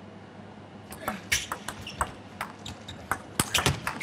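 Table tennis ball bouncing on the table and struck by rubber-faced bats in a rally, heard as a quick, irregular series of sharp clicks beginning about a second in.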